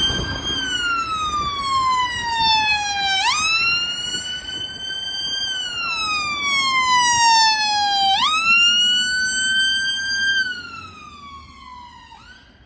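Emergency vehicle siren on a slow wail, each cycle sweeping quickly up and then falling slowly over about four seconds, repeating roughly every five seconds. It grows much fainter about ten seconds in.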